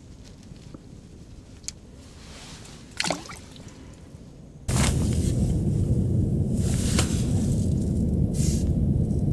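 Faint clicks and a short squeak from small handling sounds as a hook is baited by hand. About halfway through, a loud steady rumbling noise with hiss cuts in suddenly and stays.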